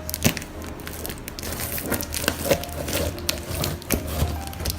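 Packaging being handled and opened: irregular crinkling, rustling and light knocks.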